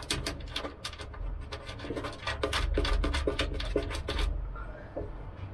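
Bolt hardware being fitted and turned by hand against the wooden airframe: rubbing and scraping, with a quick run of small clicks in the middle.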